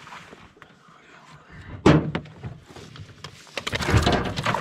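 Knocks and thumps on a boat's diamond-plate metal deck as a freshly landed walleye and the landing net are handled: one sharp knock about two seconds in, then a run of knocks and thumps from about three and a half seconds on.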